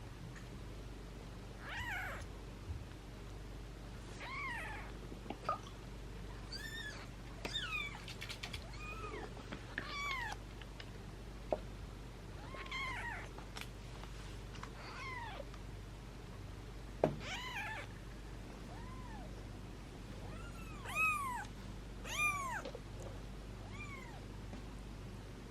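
Young kittens mewing: a string of short, high, rising-and-falling cries, some in quick succession, with a few sharp clicks between them.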